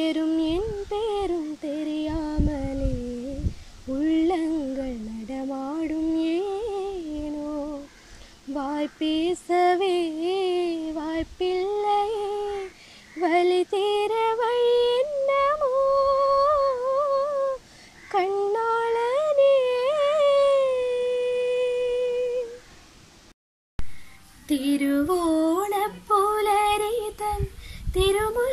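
A young woman singing solo without accompaniment, in a melody full of ornamented slides and bends. She holds one long note past the middle. The sound cuts out briefly about three-quarters of the way through, and then she carries on singing.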